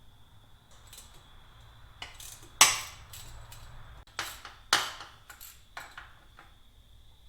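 A handful of sharp metallic clinks and taps from hand tools and bolts working on the cam chain tensioner of a 1981 Honda CB650 motorcycle engine, the loudest about two and a half seconds in and a few more between four and six seconds in.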